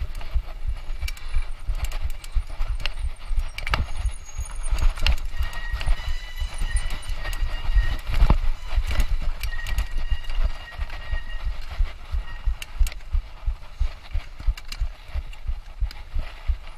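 Mountain bike ridden over rough trail, heard from onboard: a rapid, irregular run of bumps and knocks, with sharp rattling clicks. A thin high whine comes in partway through and fades out after several seconds.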